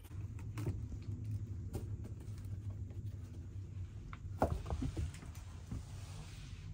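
Kittens moving about and playing: scattered soft taps and scuffles over a steady low hum, with a brief louder clatter about four and a half seconds in.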